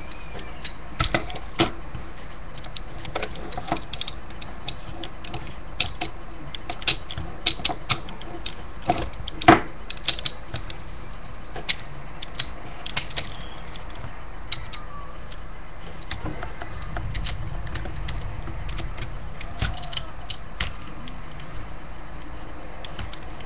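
Plastic parts of a Transformers Optimus Prime action figure being handled and transformed: irregular sharp clicks and snaps of pegs and joints over a steady low hiss.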